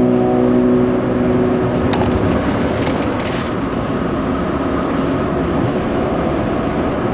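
A car's engine and tyre noise heard inside the cabin while driving along the road, a steady rumble. A tail of guitar music fades out in the first two seconds or so.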